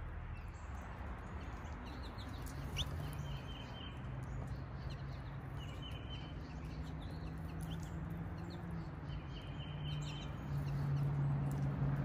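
Wild songbirds: a short, even trill repeated three times a few seconds apart, with scattered chirps, over a steady low hum.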